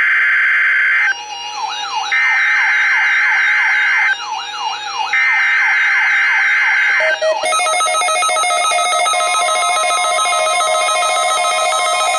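NOAA Weather Radio SAME digital header bursts for a Required Weekly Test: harsh, buzzy two-tone data screeches about two seconds long, three in a row with about a second between, with a warbling electronic chirp in the gaps. From about seven seconds in, a steady electronic alert tone with a fast pulse follows.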